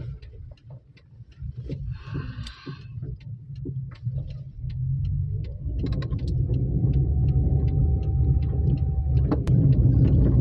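Car engine and road rumble heard from inside the cabin of a moving car, quieter at first and growing louder about halfway through as the car picks up speed, with scattered light clicks.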